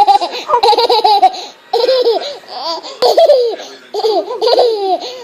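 Baby of about a year laughing hard while being tickled, in four high-pitched bouts of laughter with short breaths between them.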